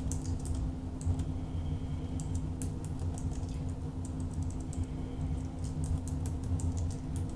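Typing on a computer keyboard: irregular runs of quick key clicks with short pauses, as a web search is typed in.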